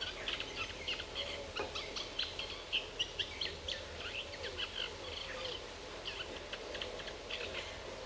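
Small birds chirping in quick runs of short, high calls over a steady outdoor background hiss; the calls thin out near the end.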